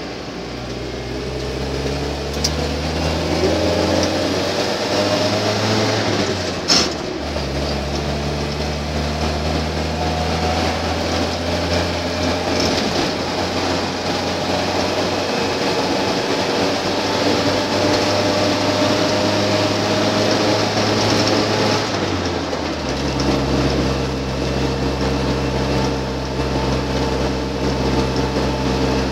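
Land Rover Series II engine and drivetrain under way, heard from the cab: revs rise over the first few seconds, change at a gear shift with a short sharp clunk about seven seconds in, hold fairly steady while cruising, then drop to a lower, steady note about three quarters of the way through.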